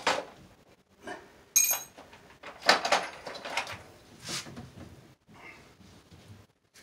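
Workshop handling noises: a few separate knocks and clatters, the loudest about three seconds in. About a second and a half in there is one brief metallic ring.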